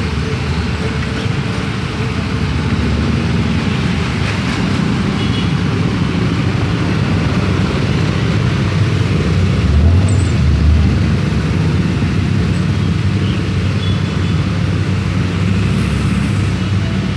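Dense road traffic: motor scooters and cars passing close in a steady din, with a brief louder swell a little past halfway.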